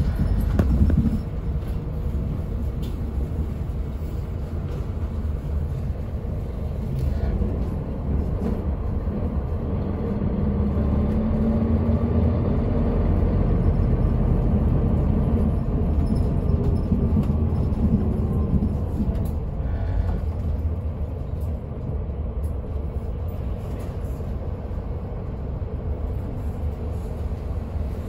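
Steady low rumble of a city route bus's engine and road noise, heard from inside the bus as it drives. About ten seconds in, the engine note rises in pitch and then falls away again a few seconds later.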